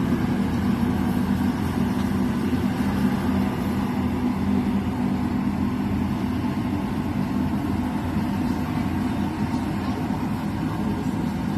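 Rice combine harvester's engine running steadily at a constant pitch, a continuous hum with no change in speed.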